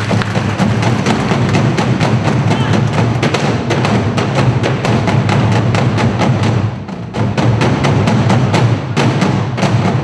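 Ensemble of Korean barrel drums (buk) struck with wooden sticks in a fast, driving unison rhythm, each stroke landing as a deep boom with a sharp stick crack. The drumming drops briefly about seven seconds in, then picks up again.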